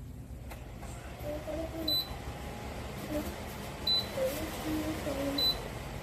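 Kanazawa tower fan's control panel beeping three times as its buttons are pressed: short high beeps about a second and a half to two seconds apart, over a steady hiss and faint background voices.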